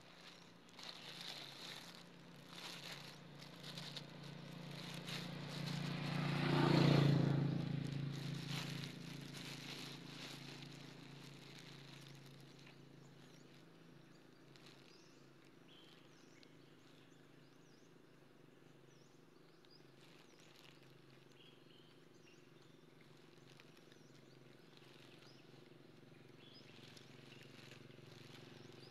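A motor vehicle passes by, its engine growing louder to a peak about seven seconds in, then fading away over the next few seconds. A low steady hum remains under it. Scattered light ticks are heard in the first several seconds.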